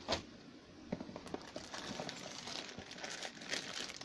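Plastic bag around a cable crinkling and rustling as it is handled and lifted out of a cardboard box compartment, with a short knock right at the start.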